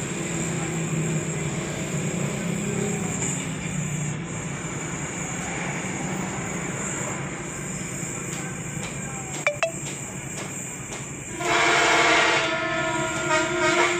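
Steady mechanical rumble. A couple of sharp clicks come about two-thirds of the way through, and near the end a loud, sustained, horn-like pitched tone starts abruptly.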